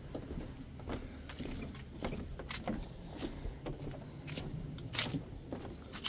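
Footsteps on a wooden plank boardwalk, a sharp knock or scuff about every half to three quarters of a second, over a steady low rumble.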